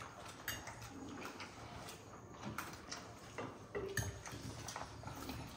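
Faint scattered clinks and taps of a spoon and hands working rice and chicken on banana leaves while eating.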